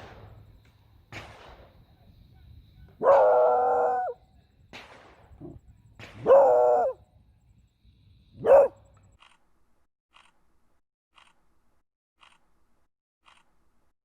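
A beagle bays three times, a long call of about a second, then a shorter one, then a brief one. Between the calls come sharp distant gunshots from a firearms range. Near the end only faint ticks about once a second remain.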